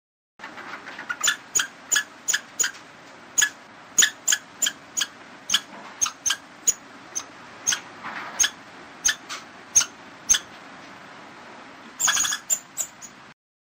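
A squirrel giving repeated short, sharp chattering calls, about two a second and irregularly spaced, with a quicker cluster near the end.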